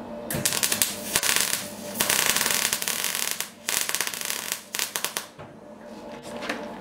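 Electric arc welding: the arc crackles and spits in three runs of a second or more, with short breaks between them, and stops about five seconds in.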